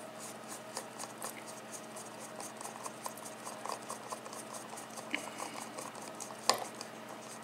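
A long screwdriver turning a screw out of a Yale cylinder lock: faint, quick metal-on-metal ticks and scratches, about five a second, with one sharper click near the end.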